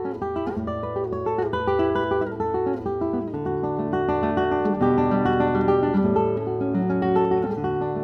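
Background music led by an acoustic guitar playing a plucked melody over a changing bass line.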